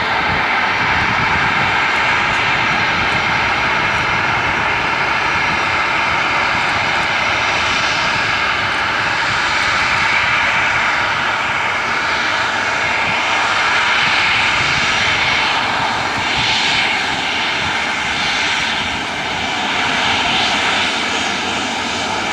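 Boeing 737-800's CFM56-7B turbofan engines at takeoff power: a loud, steady jet rush with a high whine over it, rising just as it starts and swelling and fading slightly in tone as the airliner moves past.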